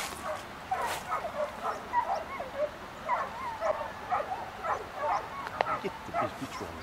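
A pack of boar-hunting dogs yelping and baying in many overlapping high voices, short cries rising and falling one after another, as the hounds chase a wild boar. Two sharp clicks in the first second.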